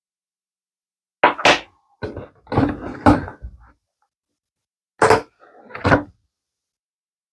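Handling noise from small resin magnets being picked up and set down on a hard surface: several short knocks and clatters in four quick groups, with a longer spell of clattering a couple of seconds in.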